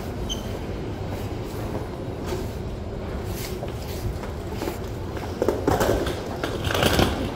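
Newark AirTrain monorail car running: a steady low rumble with scattered knocks and rattles, and a louder stretch of clatter about five and a half seconds in.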